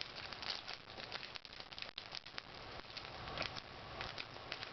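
Foil Pokémon booster-pack wrapper crinkling and crackling in the hands as it is worked open, with many small irregular clicks.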